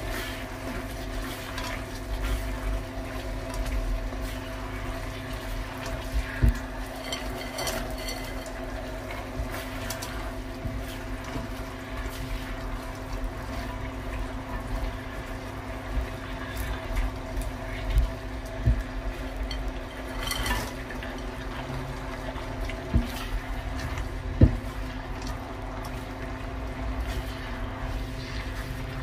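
Tempe strips and spices bubbling and sizzling in a sauce in a nonstick wok as a silicone spatula stirs them, with a few sharp knocks of the spatula against the pan. A steady hum runs underneath.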